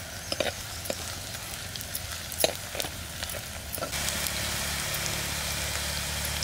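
Dried prawns and sliced onions frying in oil in a clay pot, stirred with a steel ladle: scattered scrapes and knocks of the ladle over a sizzle. About four seconds in, a louder, steady sizzle takes over.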